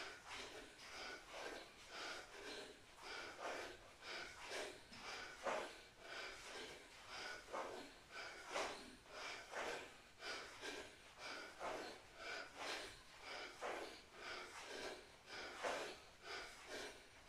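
A person breathing hard and rhythmically during exercise: short, noisy breaths about every half second.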